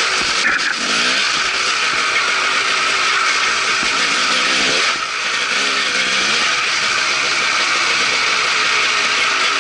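Dirt bike engine under way, its revs rising and falling with the throttle, under a loud, steady hiss of wind on the microphone. The revs and level drop briefly about five seconds in, then pick up again.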